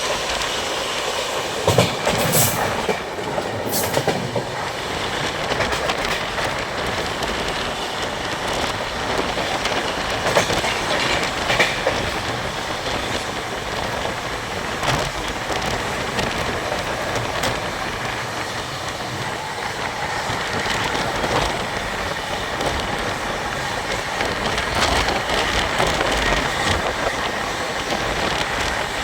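A moving train: steady rolling noise of steel wheels on the rails, with a few sharp clicks in the first few seconds.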